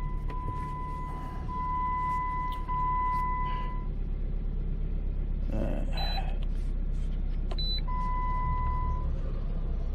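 Steady low rumble of a car idling, heard from inside the cabin, under electronic beeps: a held mid-pitched tone over the first few seconds and again briefly near the end, and two short high beeps around the middle.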